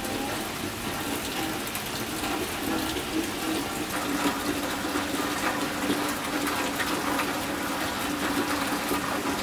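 Steady rain falling, with water pouring and running: a constant wash of noise sprinkled with small drip ticks.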